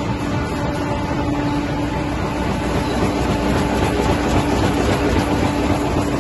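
Flexo printer slotter with inline folder gluer running in production: a steady mechanical din of rollers and feed belts carrying corrugated board blanks, with a constant hum under it.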